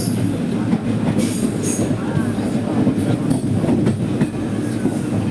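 Steady rumble of a moving passenger train heard from on board, with scattered clicks of the wheels over the rails and a few brief high-pitched squeals about a second in.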